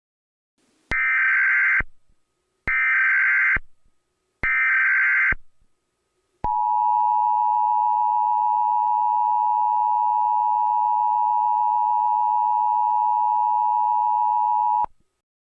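Emergency Alert System header: three short bursts of screeching digital data tones, each just under a second long, followed by the steady two-tone EAS attention signal held for about eight seconds, which then cuts off abruptly.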